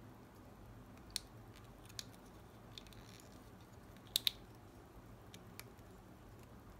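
Small sharp plastic clicks and taps as a rubber tyre is worked onto a plastic wheel rim of a 1:24 scale die-cast model car and the wheel pieces are pressed together. A quick double click about four seconds in is the loudest, and a few single clicks come before and after it.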